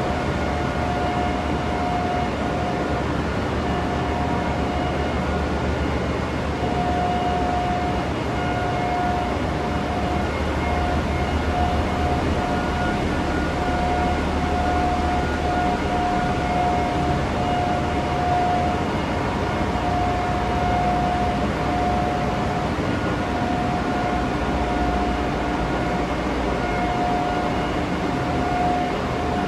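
Ship's engine-room machinery running steadily: a dense rumble and hiss with a high whine that wavers in and out.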